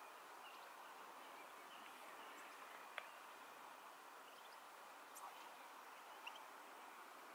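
Near silence: faint outdoor ambience with a few soft, distant bird chirps and a single small click about three seconds in.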